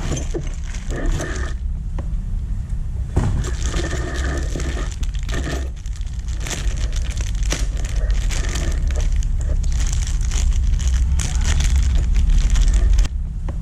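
Packaging being handled and opened: irregular crinkling and rustling of wrapping, over a steady low rumble.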